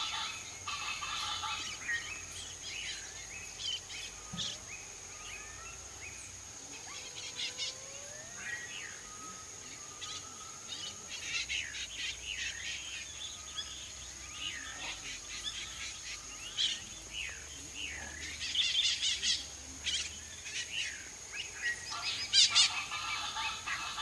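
Birds chirping and whistling with short rising and falling notes over a steady high whine. Near the end a Chaco chachalaca breaks into loud, harsh, pulsing calls.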